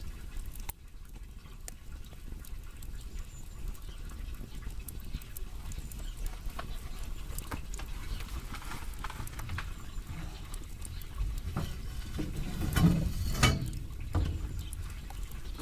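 Burning firewood crackling and popping irregularly over a low steady rumble of the fire, with a louder flurry of pops near the end.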